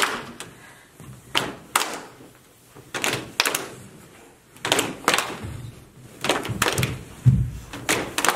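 A group of people clapping their hands in the rhythm of a clapping game: sharp claps in short clusters of two or three, with brief gaps between them. The loudest sound is a duller, heavier thud about seven seconds in.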